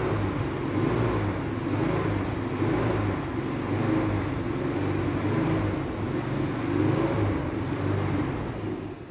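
Portable generator engine running: a steady low drone that wavers slightly in pitch, dropping away suddenly near the end.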